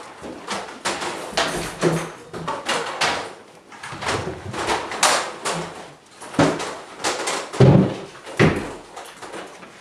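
Folding chairs being picked up, carried and set down on a hard floor, with irregular knocks, scrapes and clatters amid shuffling feet. There are two heavier thumps about three-quarters of the way through.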